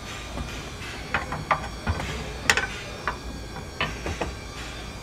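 Steel leaf spring being handled and set into position on a trailer's suspension box, giving a series of irregular metal knocks and clicks, the loudest about halfway through.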